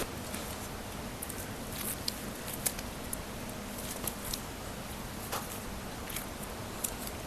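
Soft rustling of clothing and handling, with scattered light clicks and taps, over a steady low room hum.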